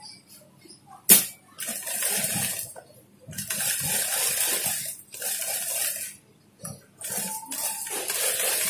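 Industrial sewing machine stitching in four runs of about one to two seconds each, with short stops between them, and a sharp click just before the first run. It is sewing a second, reinforcing line of stitches along a crotch seam.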